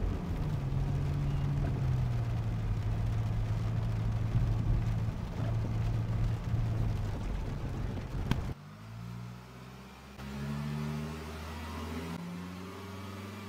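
Mercedes-Benz GLE SUV driving along a rain-wet road: a steady engine and tyre hum. About eight seconds in there is a sharp click, after which the sound goes on quieter with shifting low tones.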